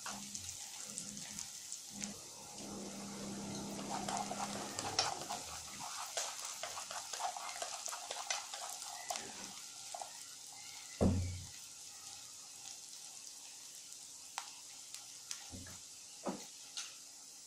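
Corn kernels sizzling in oil in a frying pan while wooden chopsticks stir them, ticking and scraping against the pan, with one louder knock about eleven seconds in.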